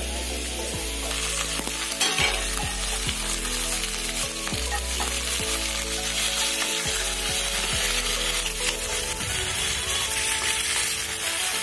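Raw boneless chicken pieces sizzling steadily in hot melted butter with garlic in a pan, with a wooden spatula scraping as it stirs them.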